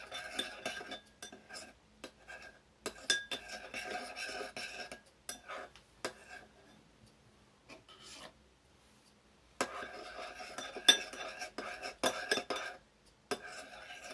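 A utensil scraping and clinking against a bowl while glue and borax water are stirred together into slime. It comes in two spells of stirring with a near-quiet pause of about four seconds between them.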